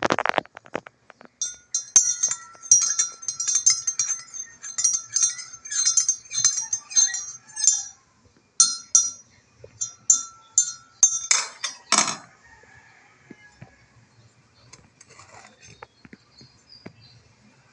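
A metal spoon stirring a drink in a ceramic mug, clinking against the sides about twice a second in two runs, with a pause around the middle. Near the end come two louder scraping clatters, then it goes quiet.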